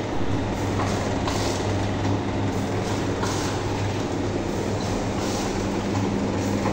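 Automatic pouch-packing machine running: a steady low hum with short bursts of higher mechanical noise repeating roughly once a second as it turns out a strip of filled sachets.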